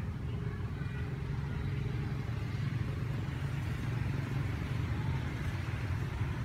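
A steady low rumble of outdoor background noise, with a few faint high chirps near the start.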